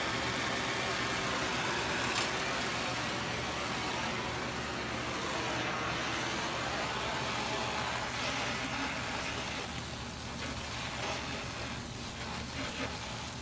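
Oxy-fuel torch flame hissing steadily as it heats a cast aluminum intake manifold, softening a little in the second half.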